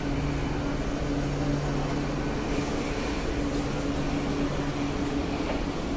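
Suburban electric multiple-unit local train standing at a platform: a steady electrical hum with a low drone that drops away about two seconds in, and a brief hiss about half a second later.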